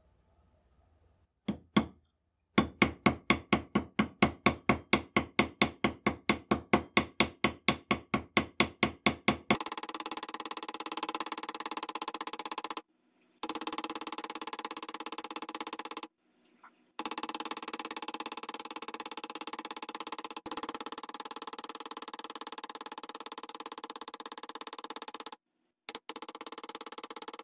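Small hammer peening a rivet end against the rifle barrel, mushrooming it to fix a handguard clip: a single tap, then about four even blows a second for some seven seconds. From about ten seconds in, background music takes over.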